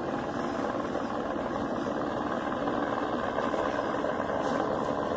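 Steady drone of a helicopter's engine and rotor, heard from the ground as it circles overhead.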